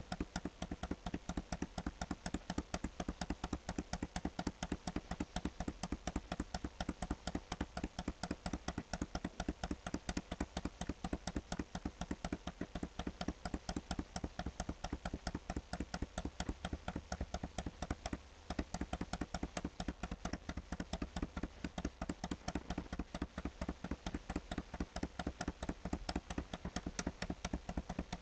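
Computer mouse clicking rapidly and evenly, over and over, as it steps a document down, with one short pause about eighteen seconds in.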